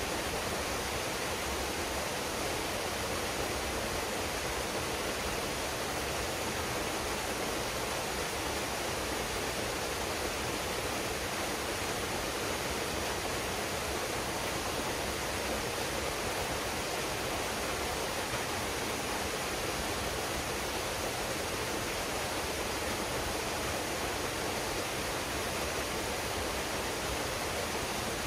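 Large waterfall pouring steadily into a pool, an even, unbroken rush of water.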